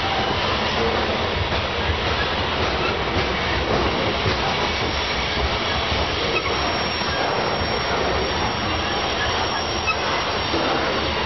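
Covered grain hopper cars of a freight train rolling past on a curve: steady rumble of steel wheels on rail, with a faint high squeal from the wheel flanges and scattered clicks.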